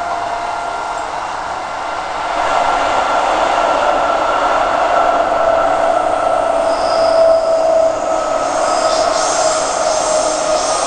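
Electric suburban train running, heard from inside the carriage: a steady rumble with a whine that drifts slightly in pitch and grows louder about two seconds in.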